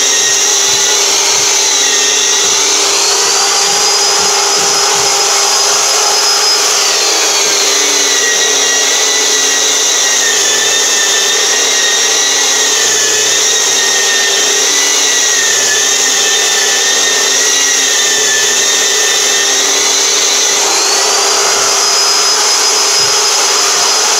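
Long-handled electric drywall sander and its dust-extraction vacuum running together while sanding a wall, a steady loud motor whine over a low hum. The whine steps up in pitch about three seconds in, drops back a few seconds later, and rises again near the end.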